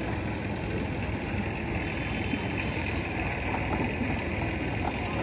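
Machinery running with a steady low drone, unbroken throughout.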